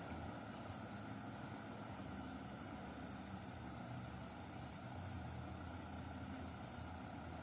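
Diesel truck engine running steadily at a distance, a low hum that grows a little stronger near the end, under a steady high insect drone.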